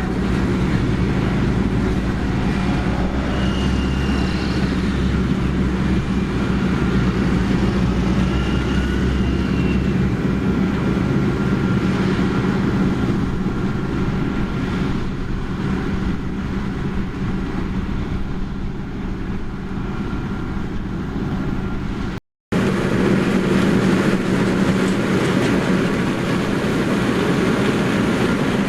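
Heavy harvest machinery running steadily, a continuous engine hum with machine noise. The sound drops out for a split second about three quarters of the way through, then resumes unchanged.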